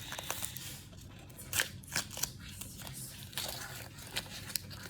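Plastic blind-bag packaging being opened by hand: crinkling and crackling with sharp snaps and tearing.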